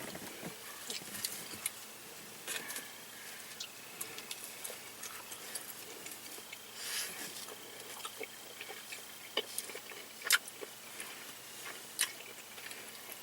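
Close-up eating sounds: chewing with irregular wet mouth clicks and smacks, a few sharper snaps about ten and twelve seconds in.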